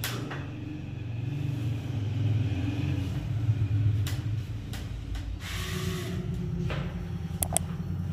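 A steady low hum throughout, with a few sharp clicks from the miniature circuit breakers in a wall-mounted distribution box being switched, including a quick double click near the end.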